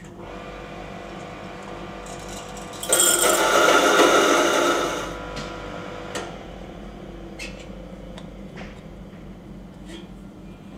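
Electric laboratory seed mill running with a steady hum, then grinding seeds loudly for about two seconds before the motor winds down. A few light clicks and knocks follow as the metal collection cup is handled.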